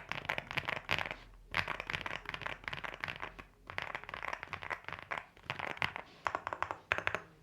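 Typing on a LEOBOG Hi8 mechanical keyboard with an FR4 plate and XINMENG Dark Plum switches: fast runs of keystroke clacks with short pauses between bursts.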